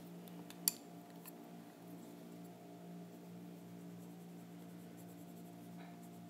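Colored pencil scratching softly on paper as it shades, with one sharp click about two-thirds of a second in, over a steady low hum.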